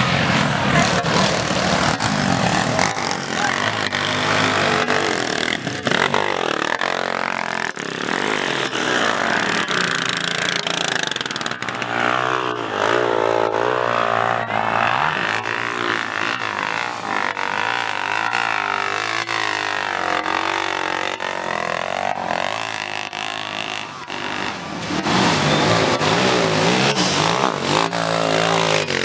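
Dirt bike engines revving under load on a steep muddy climb, the pitch rising and falling again and again as the throttle is worked.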